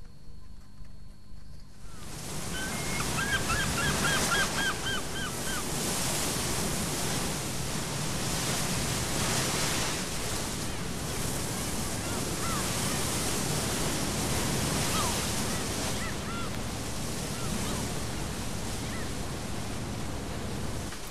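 Water rushing and splashing past a moving boat, with wind. A few seconds in there is a quick run of short chirping calls, and a few single ones follow later.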